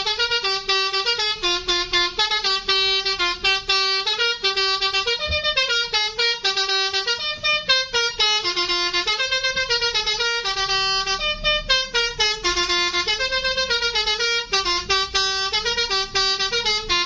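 Bus 'telolet' musical horn playing a quick tune of short notes that step up and down in pitch, without a break.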